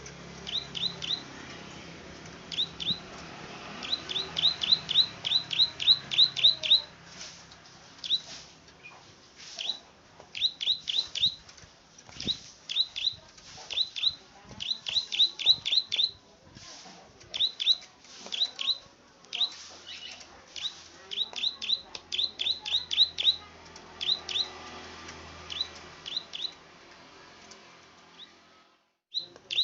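Small rice-field songbird (the 'klik-klik' bird) calling: sharp, high clicking notes repeated in quick runs of two to ten, with short pauses between the runs.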